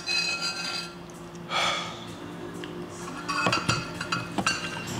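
Tableware clattering: a ringing clink at the start and a short scrape, then a run of knocks as a stoneware ttukbaegi bowl with a metal spoon in it is moved and set down on its holder on a wooden table.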